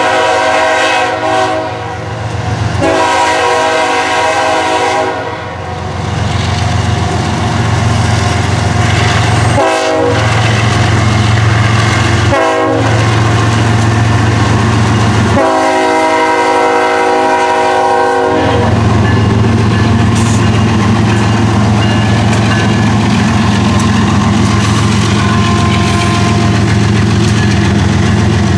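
BNSF GE ES44AC diesel locomotive sounding its air horn for a grade crossing as it approaches: several blasts, long and short, ending with one long blast. Its diesel engine and the wheels of the coal cars then rumble and clatter steadily past.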